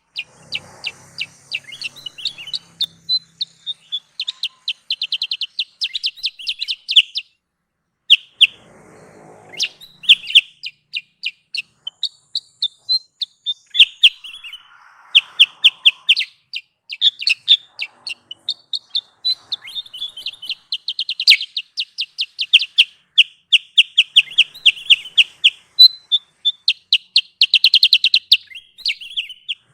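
Kutilang sutra songbird calling in rapid chattering trills of short high notes, several phrases a few seconds long with brief pauses between them, as played to lure wild birds.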